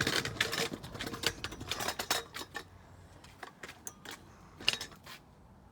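A run of irregular light clicks and rattles, dense for about the first two seconds, then sparser.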